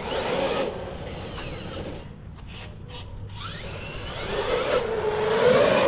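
Traxxas Sledge RC monster truck's brushless electric motor whining as it drives on asphalt. The whine fades in the middle, then rises in pitch and grows louder near the end as the truck accelerates.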